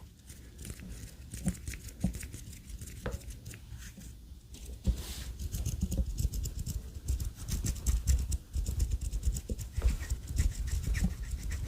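Soft close-microphone rustles and small clicks from a person's slight movements, with a breath-like hiss about five seconds in; the clicks come thicker from then on.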